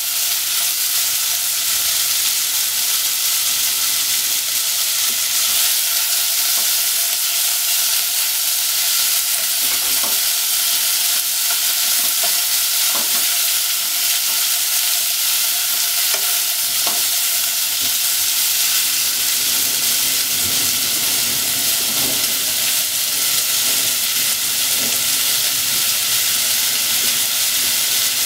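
Thinly sliced pork sizzling in hot oil in a nonstick pot, stirred and turned with long wooden cooking chopsticks, which knock lightly against the pot a few times. The sizzle is steady throughout.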